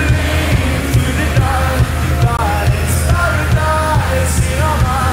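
Live pop-rock band playing an instrumental stretch between verses, with a steady drum beat and a melody line over it.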